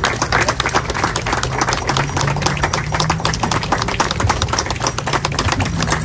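A group of people clapping steadily, many quick, irregular claps overlapping.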